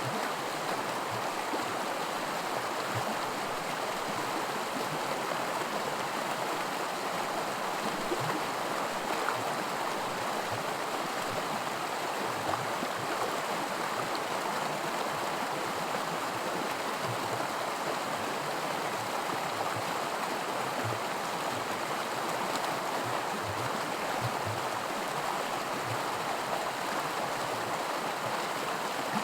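Small woodland creek running over a shallow riffle of miniature white water: a steady rushing babble with small gurgles.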